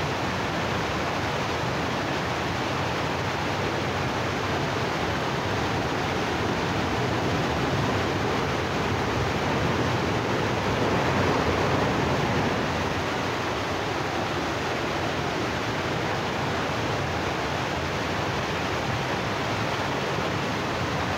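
Muddy river in flash flood rushing past, a steady, loud rush of churning water that swells a little about halfway through.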